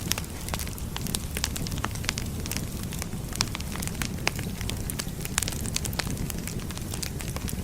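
Wood fire burning: a steady low rush of flames with frequent sharp, irregular crackles and pops from the burning logs.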